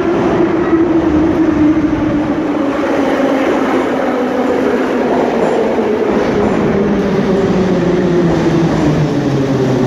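Metro train running into the station and slowing, its whine falling steadily in pitch over the rumble of wheels on the rails.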